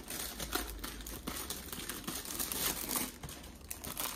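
Packaging and a poster being handled, crinkling and rustling irregularly with many small crackles.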